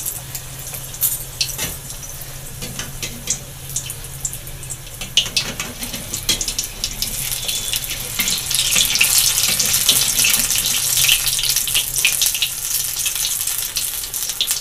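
Papad-wrapped paneer roll deep-frying in hot oil in a metal kadhai: steady sizzling with many sharp crackles, growing louder about halfway through as the roll is stirred and turned with a metal spoon.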